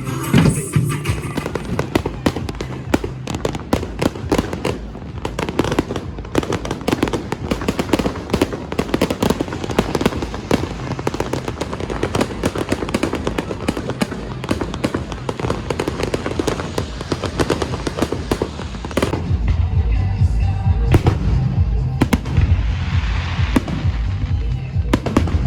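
Fireworks bursting and crackling in a dense, irregular barrage, over festival music; about three quarters of the way through, heavy bass music rises under the bangs.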